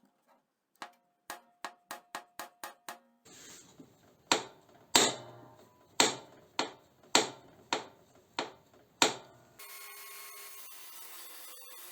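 A run of light clicks, then about eight loud, sharp knocks, one every half second or so, typical of hammering on a workpiece. Near the end this cuts to a steady rasping noise of sawing or filing.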